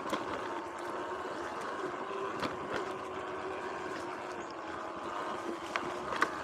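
Sur-Ron X electric dirt bike's motor whining as it rides along a dirt trail, its pitch wavering a little with speed over tyre and drivetrain noise. A few sharp clicks and knocks, the loudest near the end.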